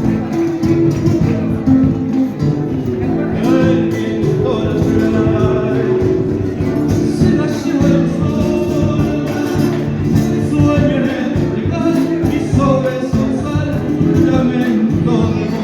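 Latin American folk music with singing, played loud over a sound system.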